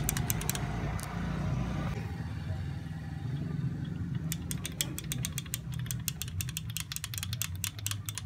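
Ratchet wrench clicking in quick runs, once at the start and again from about halfway to the end, while working on the exposed valve train of a Honda Vario 150 scooter engine. A steady low hum runs underneath.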